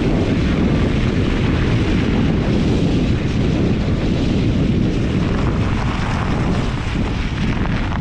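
Steady rumbling wind noise buffeting an action camera's microphone while riding a fat-tyre e-bike, mixed with the 4-inch tyres rolling over snowy, slushy pavement.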